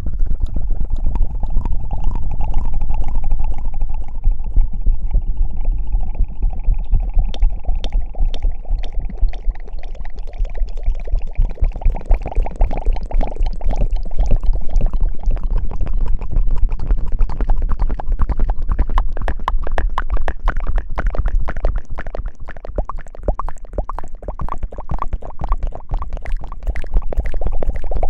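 Close-miked ASMR hair-washing sounds: dense, continuous wet crackling and squishing, like lathered fingers scrubbing right against the microphone, with a heavy low rumble underneath.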